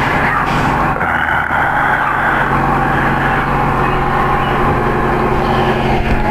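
Steady mechanical drone, like a vehicle engine running, with a constant low hum.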